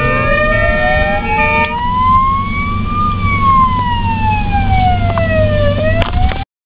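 Ambulance siren sounding a slow wail: it rises for about three seconds, falls for nearly three, then starts to rise again, over a low traffic rumble. A steady chord of tones under it stops after about two seconds, and the sound cuts off abruptly near the end.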